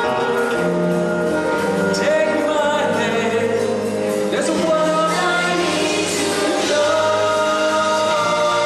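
Live stage-show band music with group singing on long held notes, recorded from the audience.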